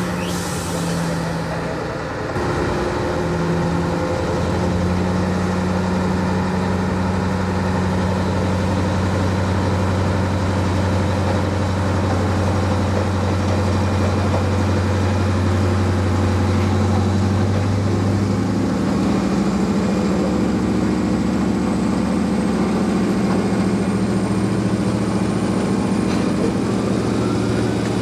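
Railpower genset locomotive's diesel engines running steadily with a deep hum. The engine note shifts about two seconds in and again about two-thirds of the way through.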